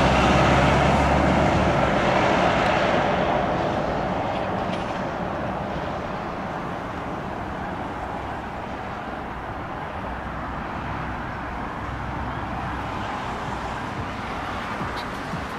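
Scania fire engine's diesel engine pulling away, its sound fading over the first few seconds as it drives off, then running on more faintly.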